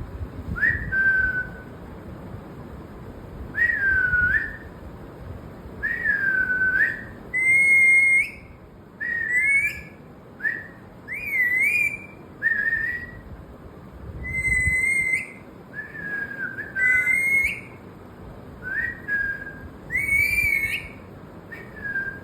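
Whistling: a series of about sixteen short whistled notes with gaps between them, some sliding down and some rising at the end. From about a third of the way through, the notes get higher and more warbled.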